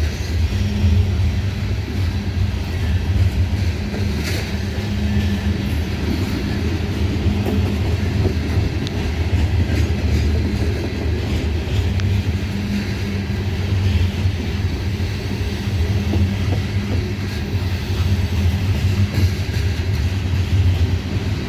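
Cars of a loaded coal train rolling past: a steady, heavy rumble with a few faint clicks from the wheels.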